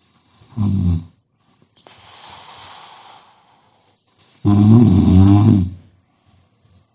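A sleeping person snoring: a short low snore about half a second in, a quieter breathy breath between, then a long loud snore about four and a half seconds in.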